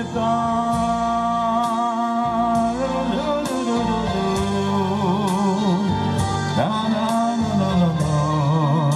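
A song played through a PA with a backing track: a steady beat under long-held melody notes that waver with vibrato.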